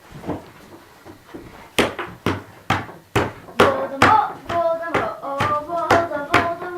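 Hand claps keeping a steady beat, about two a second, with voices singing a chant over the beat in the second half.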